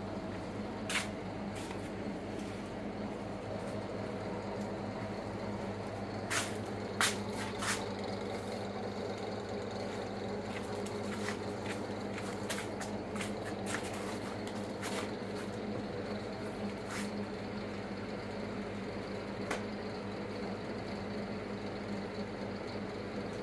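A steady low electrical hum of running equipment, with scattered sharp clicks and knocks from someone moving about and handling things, the loudest about seven seconds in.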